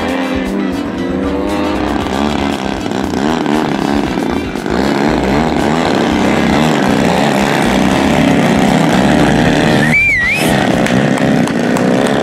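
Engines of two radio-controlled aerobatic model airplanes running through a paired display, their pitch rising and falling as they rev and pass by. A brief warbling high tone comes about ten seconds in.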